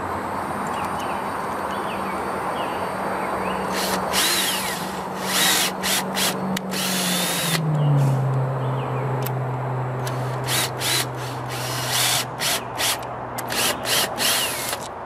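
Cordless drill driving a screw through PVC pipe into the wooden frame. The motor's steady whine drops in pitch about halfway through, with louder bursts of grinding coming and going and a run of short bursts near the end.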